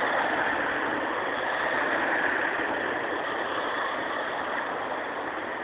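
Steady road traffic noise: car engines and tyres on a busy street, an even hiss without any single engine standing out.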